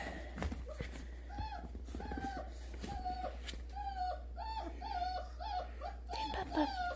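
Neapolitan Mastiff–American Bulldog cross puppy whining in a string of short, high cries, about a dozen, coming quicker toward the end.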